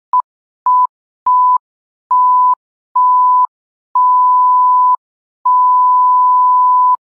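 Electronic beep tone of a film-countdown intro: one steady high pitch sounded seven times, each beep longer than the last, from a short blip to about a second and a half, with a click at each start and stop.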